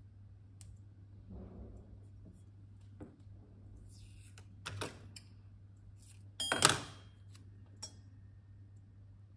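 Masking tape being pulled from its roll and torn off: a short ripping noise about two-thirds of the way through, the loudest sound here, with faint clicks and taps of fingers pressing tape onto a glazed earthenware vase. A steady low hum runs underneath.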